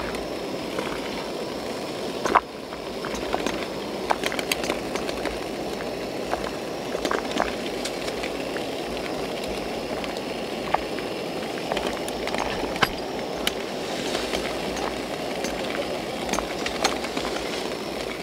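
Water at a rolling boil in a small aluminium camping pot on a camp stove: steady bubbling and hiss, with scattered sharp ticks and taps as a thin metal skewer pokes the potatoes and eggs and knocks the pot, the loudest about two seconds in.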